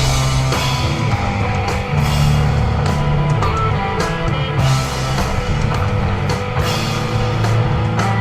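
Live instrumental desert rock from a trio: electric guitar, bass guitar and drum kit playing together, with a steady bass line and repeated cymbal crashes.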